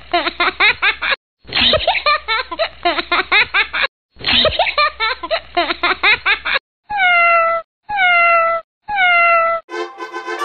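A canned laughter sound effect, a couple of seconds of rapid giggling looped end to end, followed by a cat meowing three times, each one a single falling call about a second apart and identical, as from a repeated clip.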